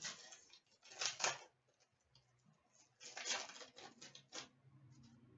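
Trading cards being handled and slid against each other by hand: several short rustling swipes.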